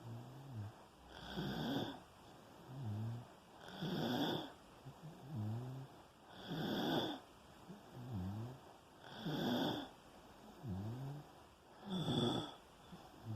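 Steady snoring in sleep: about five slow breath cycles, one every two and a half seconds or so, each a low, pitched snore followed by a breathy rush of air.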